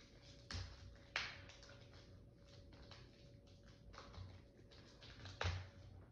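Hands handling a stack of Yu-Gi-Oh! trading cards and their packaging: faint rustling with a few sharp clicks or snaps, the loudest about a second in and near the end.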